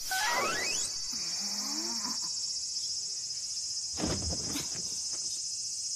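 Steady high chirring of an insect chorus, the summer ambience of the cartoon's soundtrack. A quick rising tone opens it, and there is a short knock about four seconds in.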